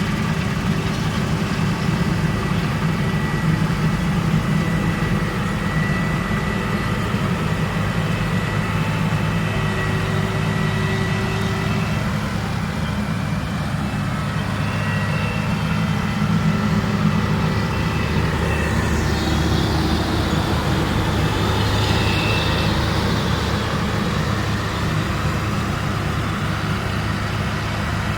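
New Holland CR 960 combine harvester running steadily, a dense low engine hum with machinery noise over it.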